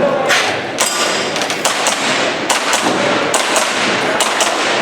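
Airsoft pistol shots fired in rapid, uneven strings, about a dozen sharp cracks, often in quick pairs, over the steady hum of a busy exhibition hall.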